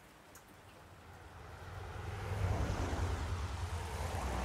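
Rolling thunder over steady rain: a deep rumble swells up over about two seconds and then holds.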